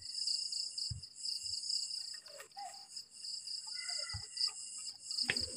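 Crickets chirping in a steady, continuous high chorus, with a couple of faint low knocks about a second in and again near four seconds.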